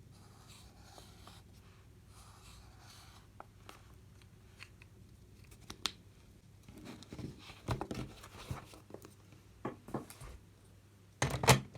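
Small handling sounds in a quiet room over a faint low hum: light rustling, scattered clicks, then a run of soft knocks and a short loud clatter near the end.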